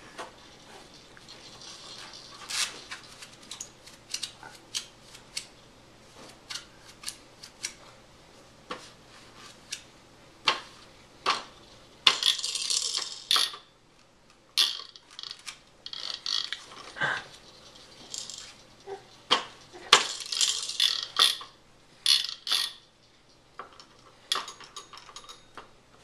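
Hard plastic toys on a baby's activity center clicking, knocking and rattling as the baby bats and spins them, among them a row of roller drums. Irregular sharp clicks throughout, with a few longer rattling spells.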